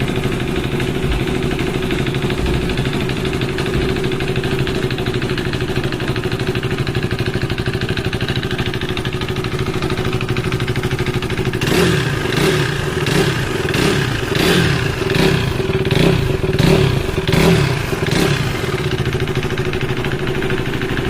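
KTM RC 390's single-cylinder engine idling, then blipped about ten times in quick succession over some seven seconds before settling back to idle. The owner flags the engine's sound as a problem.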